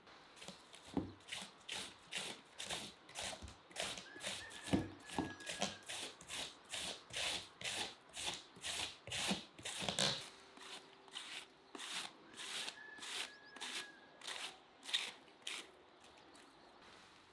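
A large knife shredding a head of white cabbage on a wooden board: a steady run of crisp slicing strokes, about two to three a second, that stops about a second before the end.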